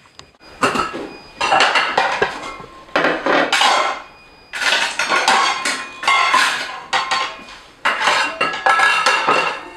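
Metal serving spoon clattering and scraping against metal cooking pots and ceramic plates as food is dished out, in several spells of clinking with short pauses between them.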